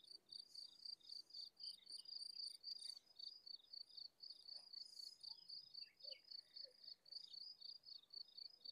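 Faint cricket chirping in a steady, even rhythm, about four to five high chirps a second.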